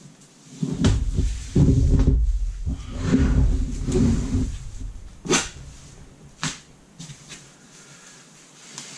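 A cardboard box being cut open with a folding knife and its flaps pulled back: loud rustling and heavy thumps of handling for a few seconds, then two sharp clicks and softer plastic and cardboard rustling.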